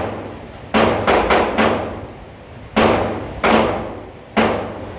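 Gunshots on a shooting range, each with an echoing tail. Four come quickly within about a second, then three more follow at intervals of just under a second.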